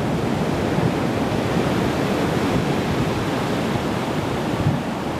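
Steady rushing noise of wind blowing across the microphone, mixed with the rush of ocean surf.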